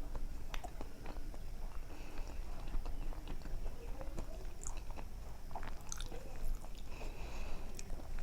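Close-up chewing and mouth sounds of someone eating soft mashed vegetable bharta and dal, with many small, irregular wet smacks and clicks.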